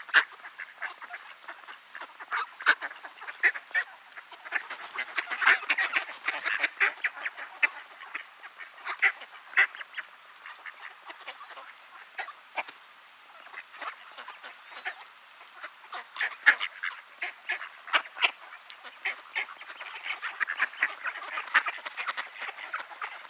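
A flock of mallard ducks quacking and calling, many short calls overlapping throughout.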